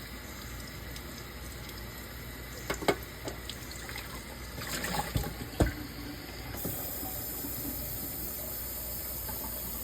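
A few clinks and knocks as the razor and hone are handled. Then, about two-thirds of the way in, water starts running steadily, rinsing the slurry off a coticule honing stone.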